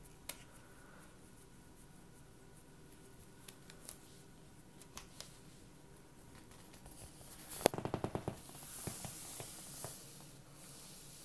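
Faint scratchy clicks and rustling from a cat pawing and biting a plush catnip mouse on carpet. About eight seconds in comes a quick run of sharper clicks, the loudest moment, followed by a short soft rustle.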